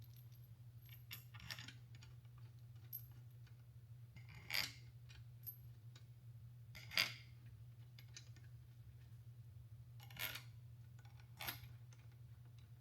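Scattered light metallic clinks and taps of bolts and hand tools being handled while a transmission valve body is fitted, the two loudest about four and a half and seven seconds in, over a steady low hum.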